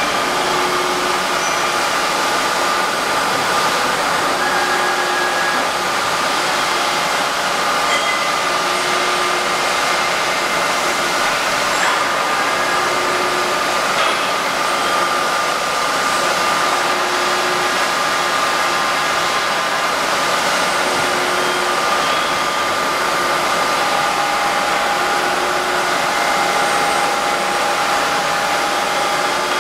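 Droop & Rein FWL 1403 CNC bed milling machine running: a steady whirring hum of its drives with a high whine, and a faint lower tone that swells about every four seconds.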